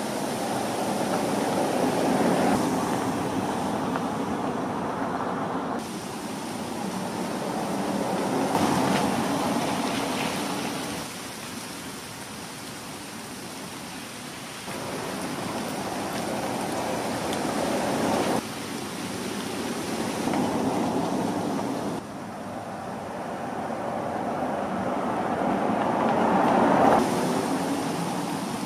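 2013 Range Rover Vogue 3.0 TD V6 driving past on a wet road: tyre and road noise swelling and fading through a series of pass-bys, each one cut off abruptly.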